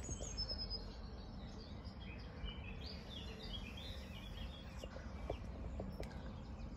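Birds chirping faintly in short, quick notes over a steady low background rumble; the chirping thins out after about four seconds.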